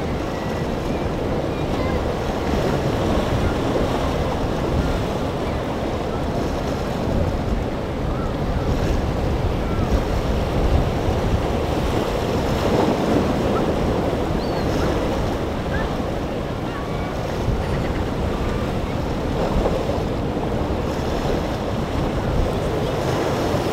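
Choppy sea water and breaking waves, with wind gusting across the microphone.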